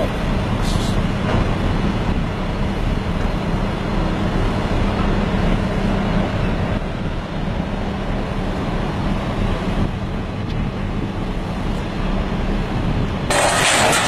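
Heavy machinery's diesel engine running steadily with a constant low hum. Near the end a louder, harsher noise cuts in abruptly.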